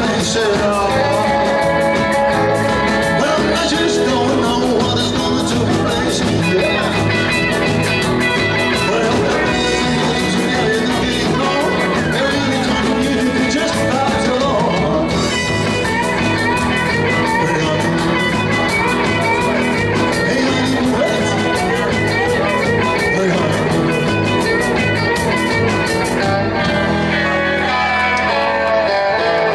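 Rock and roll band playing live: electric guitar over a steady bass and drum beat.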